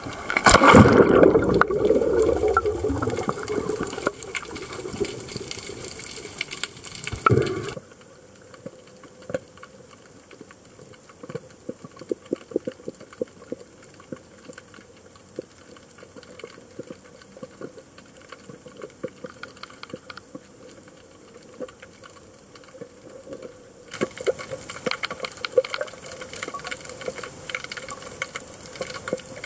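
A free-diver in long fins drops into the sea with a loud splash and rush of water and bubbles, fading over a few seconds, with another short gush about seven seconds in. Then underwater sound: a muffled hush with many scattered sharp clicks and crackles, turning louder and brighter near the end.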